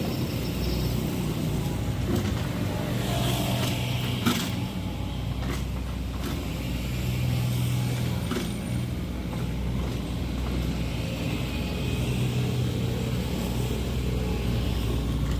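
Komatsu MR30 mini excavator's diesel engine running steadily, rising and easing a little with the work. A few sharp knocks come through it, the loudest about four seconds in.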